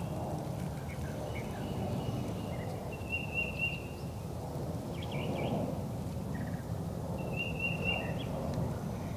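Outdoor woodland ambience: a steady low background rumble with a few short, high, even-pitched bird calls, the clearest two about three and seven and a half seconds in.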